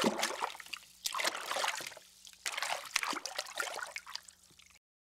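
Water splashing and trickling sound effect in three surges, each fading away, cutting off suddenly near the end.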